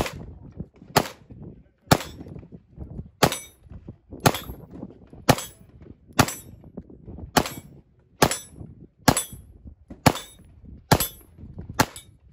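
Rock Island Armory 5.0 9mm pistol fired in slow, steady single shots, about a dozen at roughly one a second.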